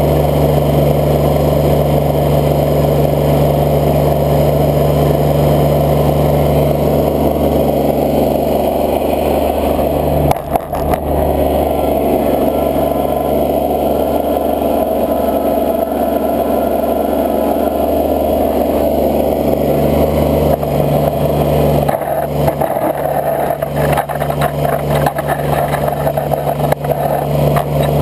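Engine of a snow-plow vehicle running steadily under load as its blade pushes through deep snow. A brief knock comes about ten seconds in, and near the end irregular knocks and scraping come as the blade shoves into a heap of snow.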